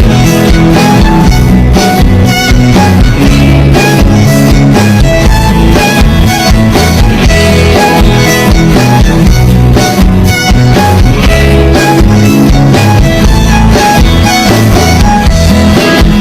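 Loud background music: an instrumental passage of a band song with a steady beat and no singing.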